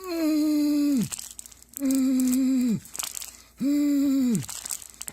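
A voice giving three long strained grunts, each held about a second and dropping in pitch at the end, with a plastic toy package crinkling in the gaps between them: straining to tear open the package, without success.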